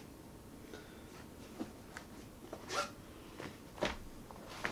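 Hand tools being rummaged through in a zippered fabric tool case: light rustling and small clicks, a short scrape a little under three seconds in, and a sharp click near the end that is the loudest sound.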